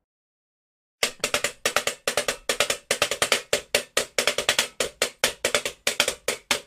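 Music: after a second of silence, a fast percussion intro of sharp, evenly spaced hits, several a second.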